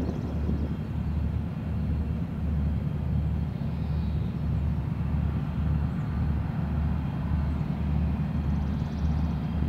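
Deep, steady drone of TE10-family diesel locomotives' 10D100 two-stroke opposed-piston engines, heard from afar, with a slow rhythmic throb of about one and a half pulses a second.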